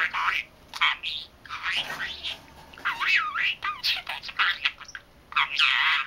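Young budgerigar chattering: a quick run of squeaky, warbling chirps that swoop up and down in pitch, with a louder burst near the end.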